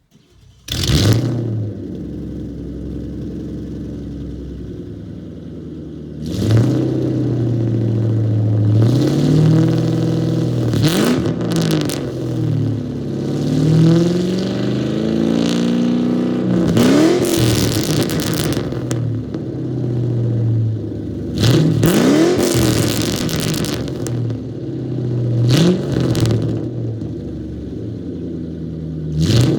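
Ford Mustang GT's 4.6-litre V8 through an aftermarket exhaust with an off-road X-pipe, starting up with a sudden loud burst about a second in, idling briefly, then revved again and again, the pitch climbing and falling with each rev.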